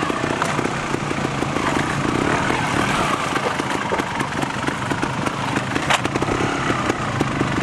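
Trials motorcycle engine running at low, uneven revs as the bike is ridden over rocks. A single sharp knock about six seconds in.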